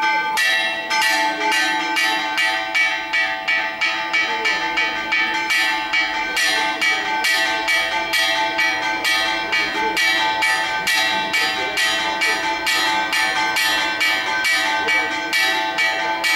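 Church bells ringing a rapid, continuous festive peal, about three strokes a second, with the bells' tones ringing on between strokes. This is the midday ringing for a saint's feast day.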